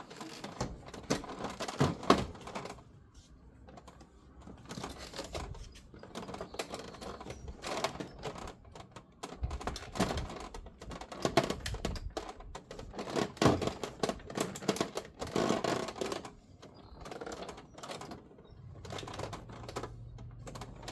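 Hard plastic interior trim of a truck's jump seat clicking, knocking and rattling as a tray is pried and wiggled by hand without coming free. The clicks come in uneven spells, with a few sharper knocks.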